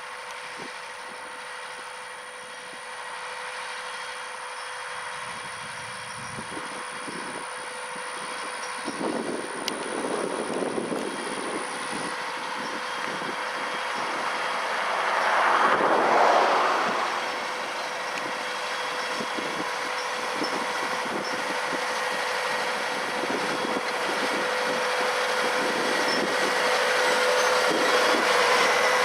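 John Deere farm tractor running steadily under load while pulling a planter, with a steady whine, growing louder as it comes closer. A louder swell of noise lasts about two seconds midway through.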